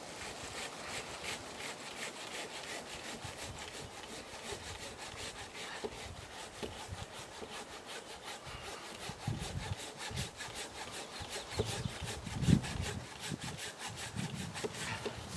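Fiskars folding saw cutting through a tree limb in quick, even back-and-forth strokes, the teeth rasping on the wood. A few dull thumps come in the second half, the loudest about twelve and a half seconds in.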